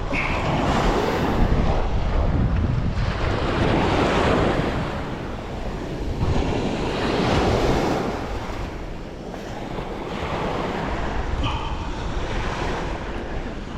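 Wind buffeting the microphone over the wash of sea waves, swelling and easing every few seconds.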